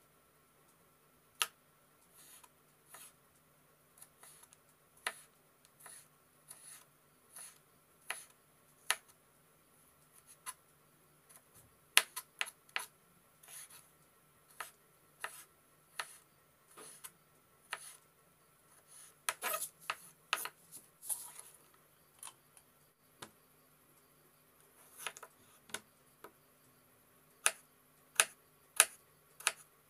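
Kitchen knife cutting carrot into thin strips on a wooden cutting board: irregular sharp knocks as the blade meets the board. Near the end come louder, evenly spaced chops as a tomato is sliced.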